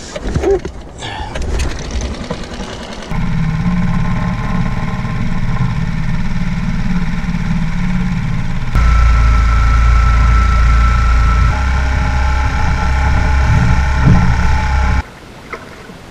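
Mercury outboard motor on a small skiff running steadily, getting louder and deeper about nine seconds in, then cutting off abruptly near the end. Quieter knocks and rustles come before it starts.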